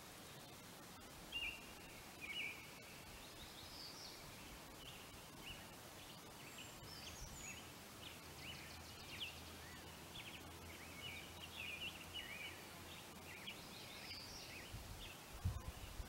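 Several small birds chirping and calling in short, repeated high notes over a faint steady outdoor hiss, with a low rumble near the end.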